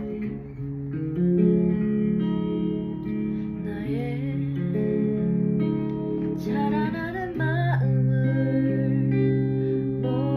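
A guitar playing slow, sustained chords while a woman sings a ballad over it; her voice comes in about four seconds in and again a little later.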